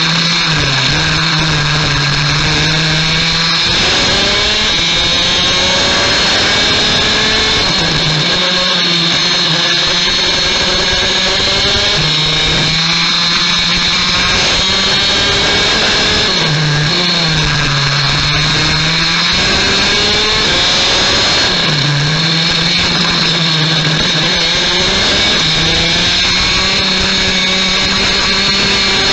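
Rotax Max DD2 kart's 125cc single-cylinder two-stroke engine at racing revs. Its note climbs high along each straight and dips as it slows for a corner, about six times over the lap.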